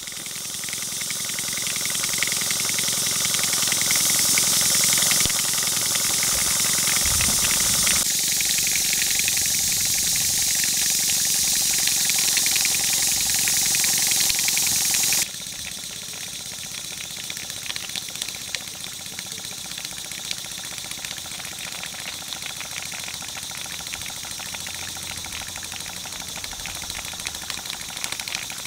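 Stuart Turner No. 10V single-cylinder vertical model steam engine running on live steam, with a loud steady hiss of steam. About halfway through the sound drops suddenly to a quieter hiss with quick regular beats from the running engine.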